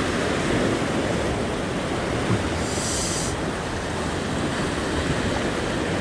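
Rough surf breaking and churning against the rocks below, a steady rush of sea water, with a brief higher hiss about halfway through.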